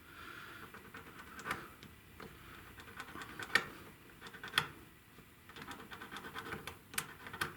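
A small file scraping over a freshly soldered connector joint in short, irregular strokes, with a few sharper clicks. It is smoothing off the solder spikes before heat shrink goes on.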